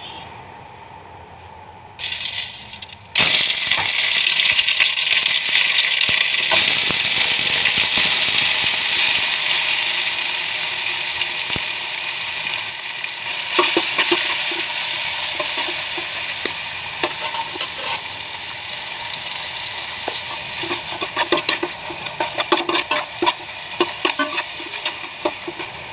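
Chopped tomatoes and green chillies dropped into hot coconut oil in a metal pan, setting off a loud, steady sizzle about three seconds in. In the second half a spoon stirs them, with short scrapes and taps against the pan.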